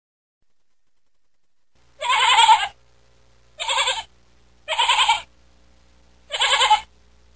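Sheep bleating four times, each bleat about half a second long and quavering.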